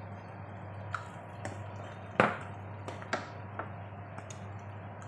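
Wooden spatula knocking and scraping against a frying pan while stirring a thick, creamy corn and vegetable mixture: several sharp knocks, the loudest about two seconds in. A steady low hum runs underneath.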